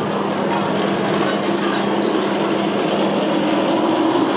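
Roller coaster train rolling away along its steel track, a steady, loud rumble of wheels on the rails.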